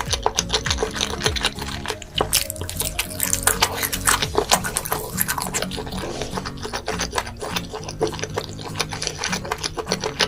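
Close-miked eating: dense, irregular crunching, chewing and wet mouth sounds over steady background music.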